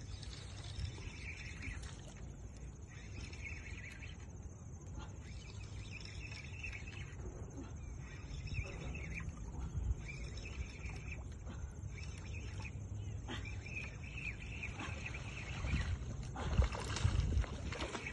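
A hooked fish thrashing and splashing at the water's surface in several loud bursts near the end, over a steady low outdoor rumble.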